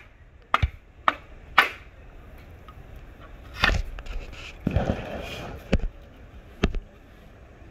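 Bamboo being worked by hand with splitting tools: a series of sharp knocks, three in quick succession, then three more spaced out, with a short rasping stretch about five seconds in.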